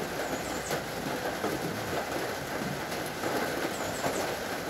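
Steady rain, a dense even hiss and patter, with a few faint high chirps, one shortly after the start and one near the end.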